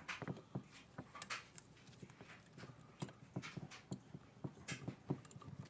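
Irregular clicks and knocks as brake pads are handled and fitted into a Mazda RX-7 FC brake caliper, several a second and uneven in loudness.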